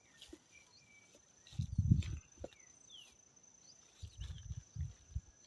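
Rural outdoor ambience: a steady high-pitched insect drone with a few short bird chirps. About two seconds in, and again near the end, come bouts of low, muffled thumping, the first the loudest.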